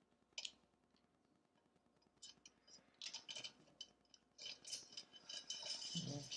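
Faint, scattered metallic clicks and light clinks from hands fitting small metal parts onto the printer's aluminium frame extrusion: a few at first, then a quiet gap, then a denser run of clicks near the end.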